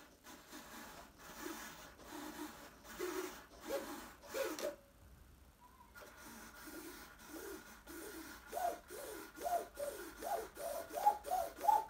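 Small RC servos whirring in short repeated bursts as the transmitter sticks drive the airplane's control surfaces back and forth, a test that the servos work. Each burst rises a little in pitch; there is a brief pause about five seconds in, and the bursts come faster and louder towards the end.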